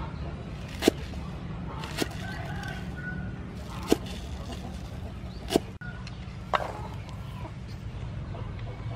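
Cleaver chopping Chinese chives on a wooden cutting board: five separate sharp chops, roughly one every second or so, stopping about two-thirds of the way through.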